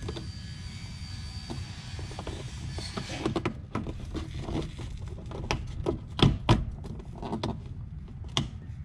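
Hands pressing and tapping a Sliplo plastic skid strip onto the underside of a car's front splitter: scattered clicks and knocks, two sharp ones about six seconds in and another near the end, over a steady low rumble.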